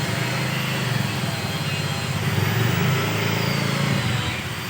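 A steady mechanical rumble of rapid low pulses with a hiss over it, swelling a little twice and easing near the end.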